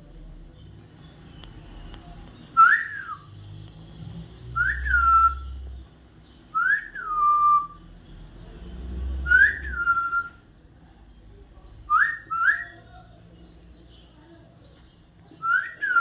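A short whistle, repeated about seven times a couple of seconds apart. Each one rises and then falls quickly in pitch, and two of them come in quick succession.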